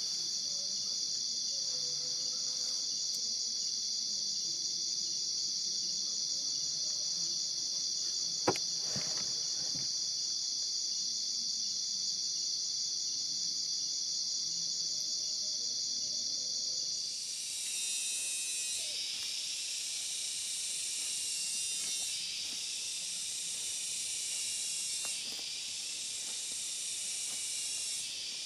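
A steady, high-pitched chorus of night insects, broken once by a single sharp knock about eight seconds in. About seventeen seconds in it gives way to a hissing chorus of daytime cicadas that swells and falls in waves every few seconds.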